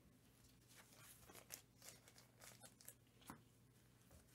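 Near silence: faint, brief rustles and light clicks of trading cards being handled, over a low steady hum.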